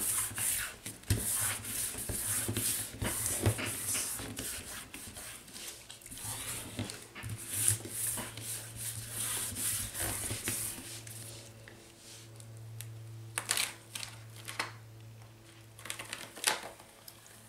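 Hands rubbing briskly over a sheet of paper laid on a wet, painted stencil, a quick run of dry swishing strokes that presses the paint into the paper to pull a print. The rubbing stops about eleven seconds in, followed by a few papery rustles and crackles as the sheet is peeled up.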